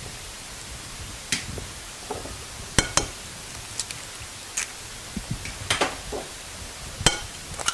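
Whole eggs being cracked against the rim of a glass mixing bowl: a series of short sharp taps and clinks, two close together about three seconds in and another near the end.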